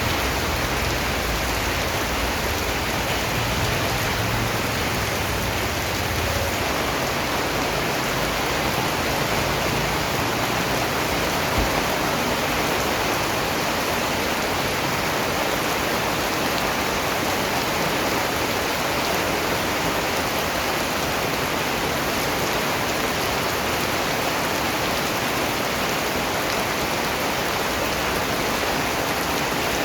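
Steady rain falling and pattering on surfaces, an even, unbroken hiss, with a single soft low thump about twelve seconds in.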